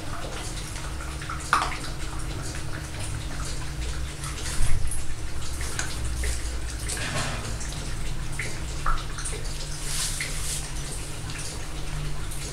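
A Cavalier King Charles Spaniel puppy eating from a stainless steel bowl on a tile floor: scattered wet chewing and licking sounds and small clicks. The loudest is a sharp knock about five seconds in, as the metal bowl shifts on the tiles.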